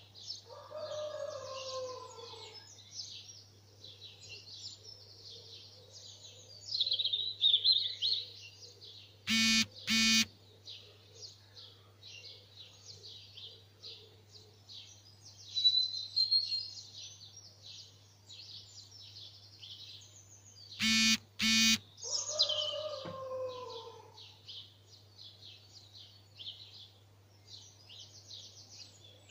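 Dawn chorus of songbirds singing and chirping without a break. A lower, falling call comes in near the start and again about two-thirds of the way through. Twice, at about nine and twenty-one seconds in, there is a loud short double burst, and a steady low hum runs underneath.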